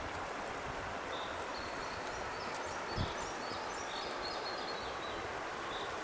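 Outdoor forest ambience: a steady background hiss with small birds chirping in short high notes, mostly through the middle, and one dull thump about halfway through.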